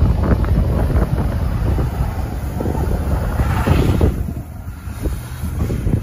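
Wind buffeting the microphone in a snowstorm: a loud, uneven low rumble, with a rushing swell that builds and fades about three to four seconds in.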